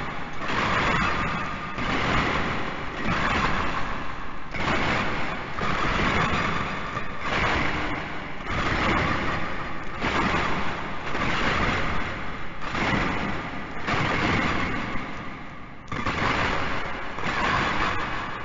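Metal shackle chains rattling and clinking in a steady series of bursts, one about every second and a half.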